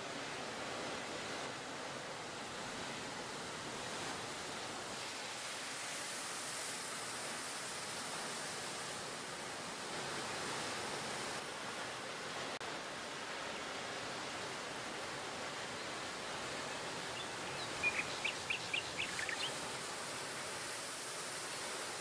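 A steady rushing ambient noise with no distinct source. About four seconds before the end comes a quick run of about seven short, high chirps.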